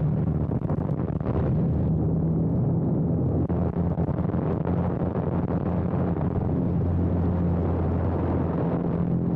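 Light biplane's engine and propeller running with air rushing past the airframe, a steady low drone under a dense rushing noise, during a spin.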